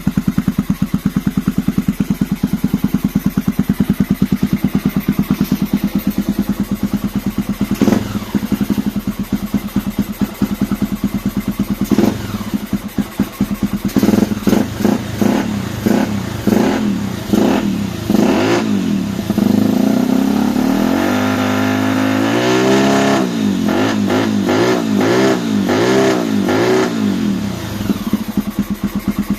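Honda Tornado 250's single-cylinder four-stroke engine through an FMF aftermarket exhaust, idling with a steady pulse, then revved in a string of short blips. About two-thirds of the way in it is held at higher revs for a few seconds, blipped several more times, and settles back to idle near the end.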